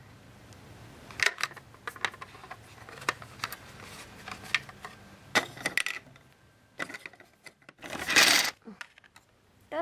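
Small plastic toy figures and plastic toy furniture handled by hand, giving scattered light clicks and taps. About eight seconds in there is a short, louder noisy burst.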